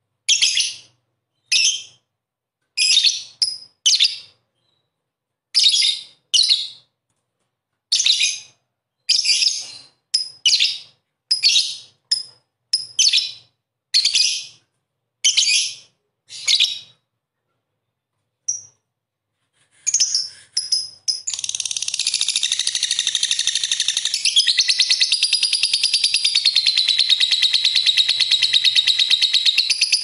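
Lovebird calls: a series of short, shrill, separate chirps with silent gaps between them, then from about 21 seconds in a long unbroken rapid chatter, the 'ngekek panjang' call.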